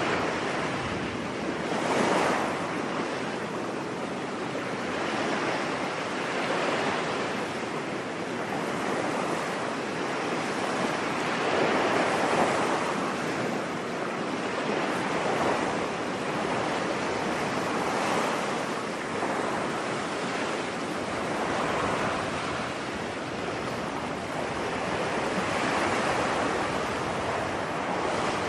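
Ocean waves washing onto a beach, a steady surf hiss that swells and ebbs every few seconds.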